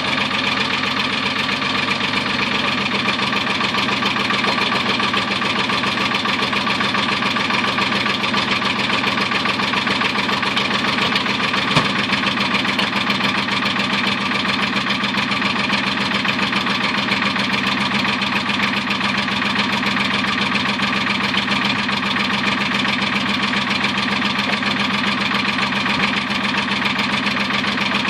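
Star 200 truck's six-cylinder diesel engine idling steadily just after a cold start at −10 °C with no glow plugs. A single short click about twelve seconds in.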